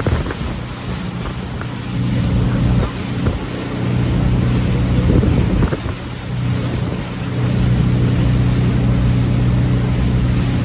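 Tour boat's motor running, a steady low hum that dips and swells a few times, with wind buffeting the microphone.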